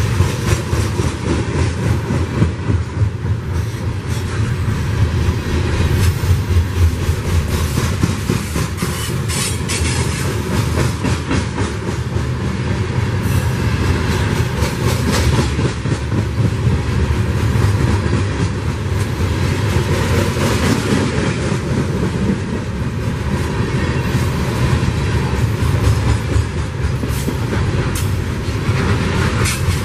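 Freight train of CSX open-top hopper cars rolling past close by: a steady heavy rumble of steel wheels on rail, with rapid clicking and clatter as the wheels cross the rail joints.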